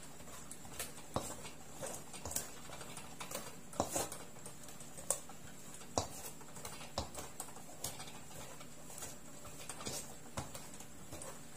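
Metal pastry blender cutting cold butter into flour in a stainless steel bowl: irregular clicks and scrapes as the blades strike the bowl and chop through the crumbly mix.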